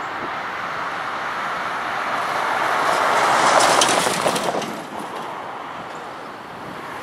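A vehicle passing by: a broad rushing noise swells to a peak about three and a half seconds in, with a few sharp clicks near the peak, then fades away.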